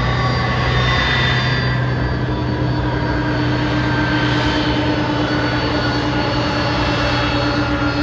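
Pratt & Whitney PW4158 turbofans on an Airbus A300B4-622R running at low power while the aircraft taxis, a steady jet whine with several held tones. A lower steady tone joins about two and a half seconds in.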